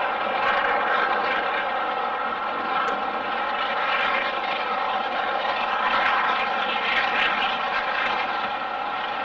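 Southern steam locomotive working hard with a passenger train, its exhaust blending into a steady sound rather than distinct beats.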